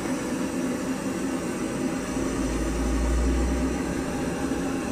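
Small handheld gas torch flame hissing steadily as it is passed over wet acrylic paint to pop air bubbles, with a low rumble swelling for a second or so about two seconds in.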